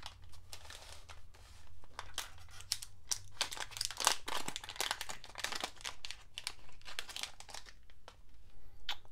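Metallised anti-static zip-lock bags crinkling as they are handled and pulled open, in irregular bursts of rustling, over a low steady hum.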